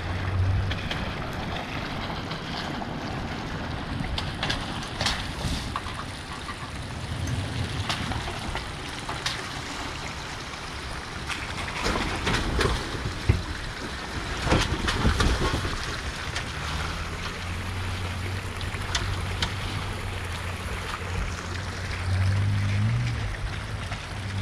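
Toyota Tacoma pickups crawling over a muddy, rocky trail: a low engine hum with the crunch, knock and splash of tyres on rock and mud. It is loudest about halfway through as a truck passes close. Near the end the engine of the next truck comes up and picks up briefly.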